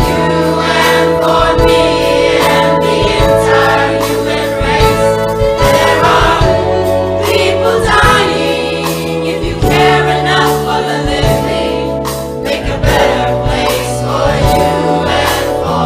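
Choir singing a gospel-style song with band accompaniment, over a steady bass and beat.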